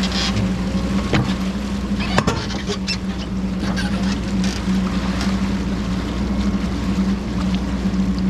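Diesel engine of a Cat 420F backhoe running steadily under work, with a couple of sharp knocks about one and two seconds in.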